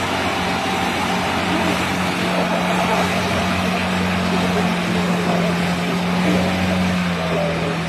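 Mahindra Thar 4x4's engine running at steady revs, a low drone that dips slightly near the end, under a steady rush of tyre and wind noise while driving.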